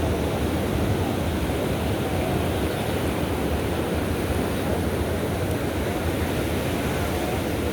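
Ocean surf on a sandy beach, a continuous even rush of waves with no breaks or single impacts.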